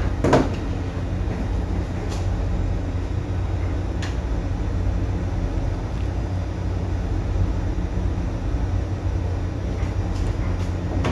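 Ship's engines heard in the wheelhouse as a steady low rumble, with a few light clicks on top.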